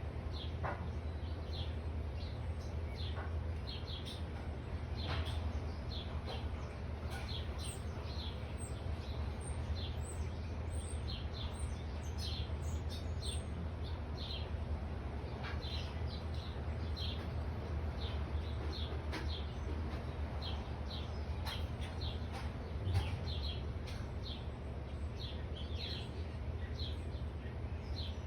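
Songbirds chirping, many short high chirps coming every second or so, over a steady low background hum.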